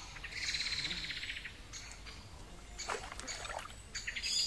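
Small songbird singing over faint running water: a high, buzzy trill lasting about a second, a few short notes, then a falling phrase near the end.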